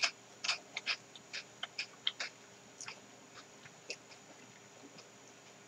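Faint crunching and chewing of a Giant Corn ice cream's crisp waffle cone: a quick run of short crunches in the first two seconds or so, then a few sparser ones.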